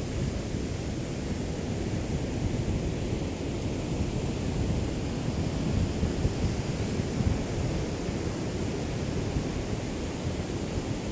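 Small waves of a calm sea lapping on the shore, a steady wash of noise, with wind rumbling on the microphone.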